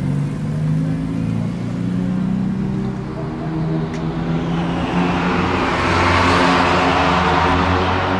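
Gumpert Apollo Sport's Audi-sourced twin-turbo V8 idling with a steady, even note. A rushing noise swells up over it in the second half and is at its loudest near the end.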